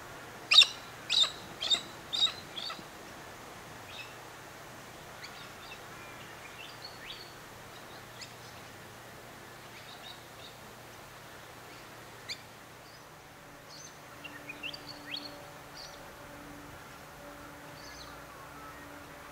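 Birds calling: a run of five loud, harsh calls about half a second apart in the first three seconds, each fainter than the last, then scattered faint chirps and a short flurry of calls about fourteen seconds in, over a faint steady background hum.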